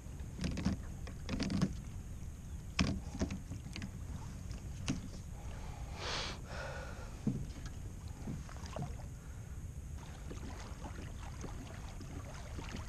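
Scattered knocks and clunks of gear against the hull of a plastic sit-on-top fishing kayak on calm water, with a short rush of water about six seconds in.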